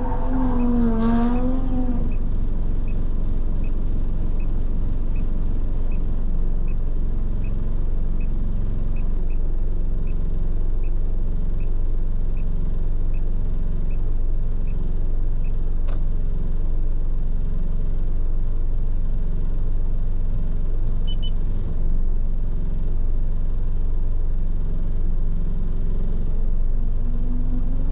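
Heavy truck running at road speed, its engine and tyres making a steady low drone inside the cab. A faint, regular ticking, about two a second, runs through the first half, and a short wavering tone sounds in the first two seconds.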